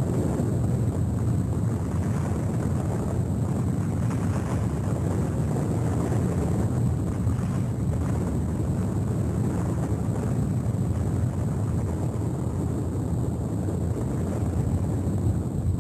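A steady, low rumbling drone that holds an even level throughout, with no voice or distinct knocks in it.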